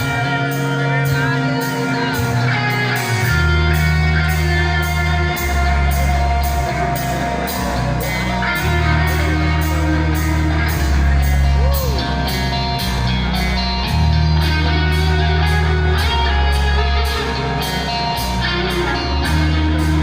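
Heavy metal band playing live: electric guitars, bass and drums, with sustained bass notes that change every second or two and a cymbal struck about twice a second.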